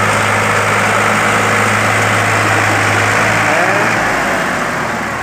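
Sonalika DI 60 tractor's diesel engine running loud and steady, hitched back to back with a second tractor for a tug-of-war pull. The drone eases off about four seconds in.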